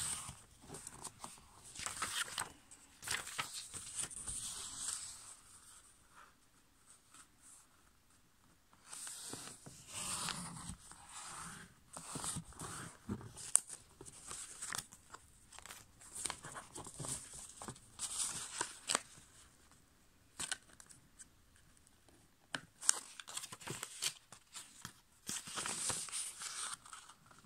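A sheet of A5 copy paper being folded by hand on a tabletop: irregular rustling and scraping strokes as fingers slide along the paper and press the creases flat, with short quiet pauses between folds.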